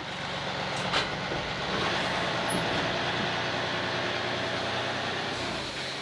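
An engine running steadily at low speed, with one sharp knock about a second in.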